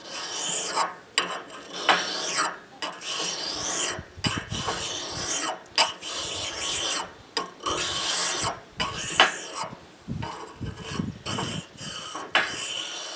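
Ice auger blade rubbed back and forth on an oiled sharpening stone, a rasping scrape on each stroke, about one stroke a second. The blade's back side is being lightly polished to take off burrs and curled-over edges.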